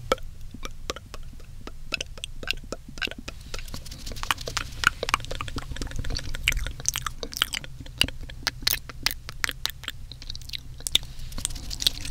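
Wet mouth sounds close to a binaural microphone: many quick, irregular tongue clicks and lip smacks.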